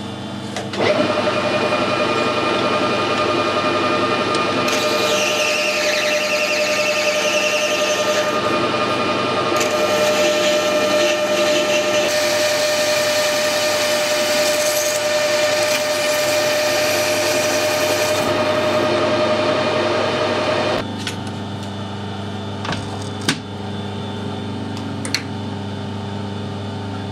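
Metal lathe running and turning an aluminium pulley with a carbide-insert tool: a steady machine whine with a hiss of cutting that comes and goes in two long passes. About two-thirds of the way through the cutting stops and the sound drops to a quieter steady hum, with a few light clicks.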